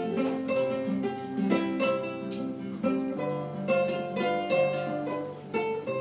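Acoustic guitar played alone: picked chords and single notes in an instrumental break between sung verses of a song.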